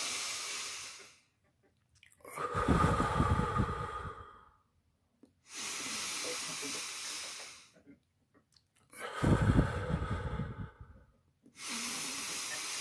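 A man's deep, deliberate breathing close to a phone's microphone, as breathwork: in through the nose and out through the mouth. Long hissing in-breaths alternate with louder out-breaths that rumble on the microphone, about two and a half slow cycles with short pauses between.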